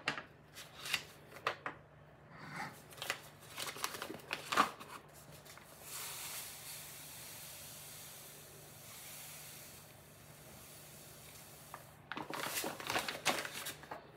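Sugar being poured into a one-cup measure: a steady dry hiss for about six seconds in the middle, with short rustles and knocks of handling before and after.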